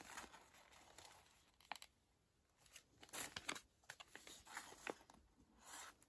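Faint, intermittent crinkling and rustling of a printed sheet-mask facial pack's packaging being turned over and handled, with a few short sharp crackles.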